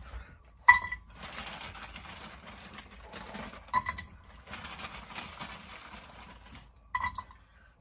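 Plastic bag of frozen broccoli rustling as florets are shaken out into a pot, with a light pattering of the pieces. Three short high chirps come about three seconds apart, the first with a sharp click.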